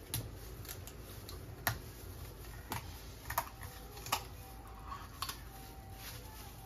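Kitchen shears cutting into a raw whole chicken: a handful of sharp clicks at irregular intervals, roughly a second apart, as the blades close.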